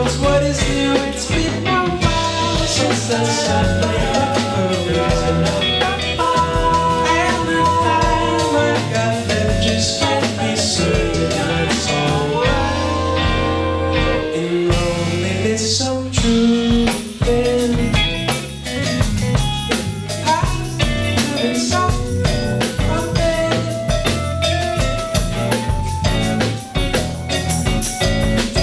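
A live band playing: drum kit and bass under guitar and long held melodic notes, running on without a break.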